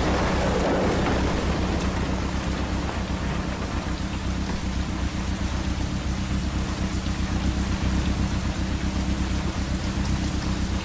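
Heavy rain pouring down steadily and splashing on surfaces, with a low, steady rumble underneath.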